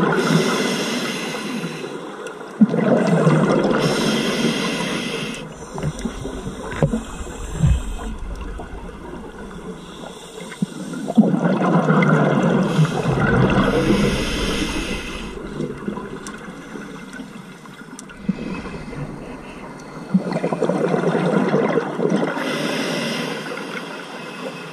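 A scuba diver breathing through a regulator, heard underwater: long bursts of exhaled bubbles, each two to four seconds, coming four times with quieter stretches between.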